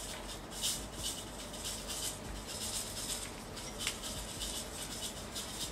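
Sugar sprinkles shaken out of a small plastic bag, pattering down onto soft slime in short, irregular bursts, with light rustling of the bag.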